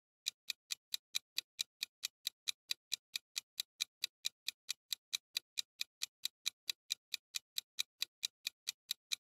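Clock-ticking sound effect marking a countdown timer: quick, even ticks, about four to five a second, starting a moment in after silence.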